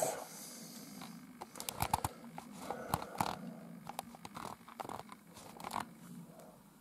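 Scattered light clicks and taps of small objects being handled, over a faint steady low hum.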